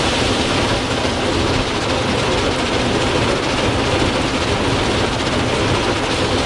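Ryko Softgloss XS soft-touch car wash working on a car, heard from inside the cabin: cloth brushes scrubbing and water spraying against the body make a steady, dense rush with a low rumble underneath.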